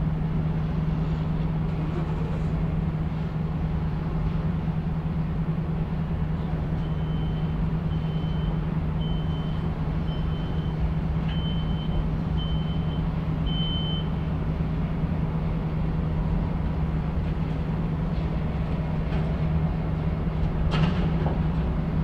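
Chemical plant heard from outside: a steady low machinery hum over a constant rumble. Midway through, a high electronic beep sounds seven times, about once a second, and a sharp clank comes near the end.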